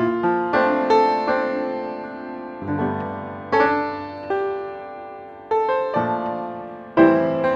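Slow jazz piano playing soft chords, each struck and left to ring and fade before the next.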